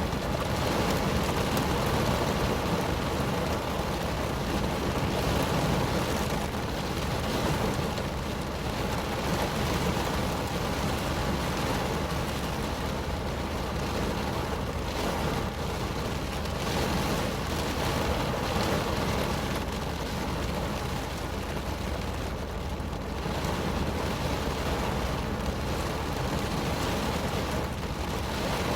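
Rain drumming steadily on a car's roof and windows, heard from inside the cabin: a dense, even patter of many small drop hits.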